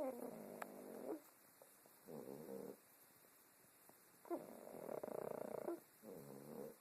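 Pug snoring in its sleep: two breath cycles, each a rough snore lasting over a second followed by a shorter, lower, buzzing snore.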